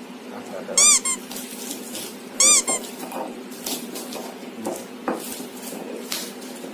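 Stone pestle crushing shallots and garlic in a flat stone mortar (ulekan and cobek): two sharp squeaks, one about a second in and another about two and a half seconds in, each followed by a shorter one, then a few scattered knocks and scrapes of stone on stone.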